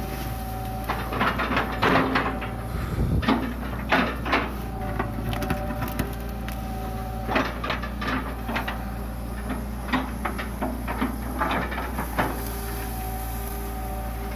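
Hitachi EX120 long-arm excavator's diesel engine running steadily, with a whine that comes and goes as the arm works. The bucket knocks and crunches through banana stumps in repeated sharp cracks.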